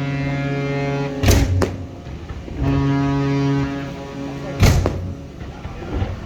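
A ship's horn sounding a long deep blast that stops about a second in, then a second blast of about a second near the middle, with two loud firework shells bursting, one after each blast.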